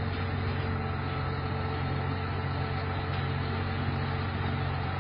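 Diesel engine of a semi-trailer tipper truck running steadily while it drives the hydraulic ram holding the dump body raised for unloading.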